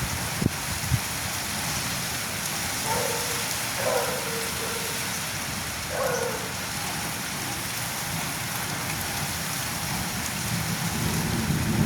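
Heavy rain pouring steadily on surfaces. A few short falling calls sound through it, about three seconds in and again around six seconds in.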